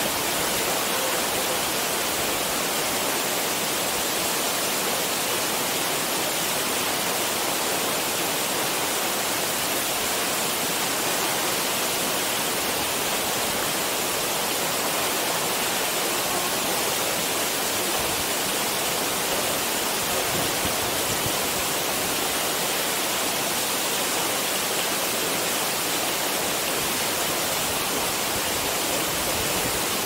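Nachi Falls, a tall waterfall, sending out an even, steady rush of falling water with no change in level, a hiss weighted toward the high end.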